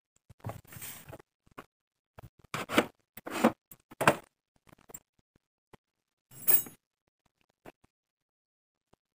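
Rustling and scraping of a rolled printed sack being pulled out of a woven plastic basket and handled, in several short bursts with a few light clicks.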